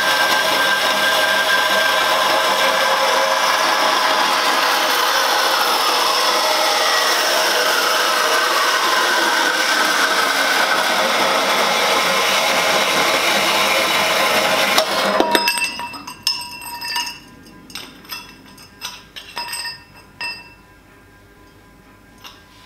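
Portable metal-cutting bandsaw running and cutting through stainless steel pipe; the blade is too coarse for the job and chips the cut edges. It cuts off suddenly about 15 seconds in with a knock, followed by a few seconds of sharp metal clinks as the cut pipe pieces are handled.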